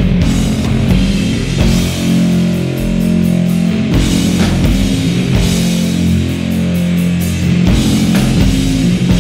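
Background rock music with electric guitar and drums, playing steadily.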